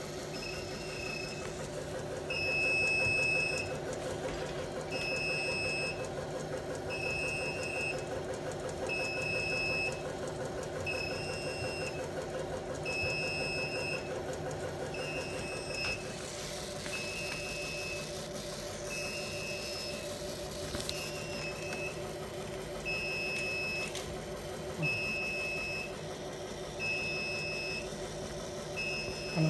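Yinma continuous inkjet printer sounding its alarm: a high electronic beep about a second long, repeating every two seconds, over the machine's steady hum. The beeping goes with the printer's red alarm lamp, the sign of a fault or warning condition.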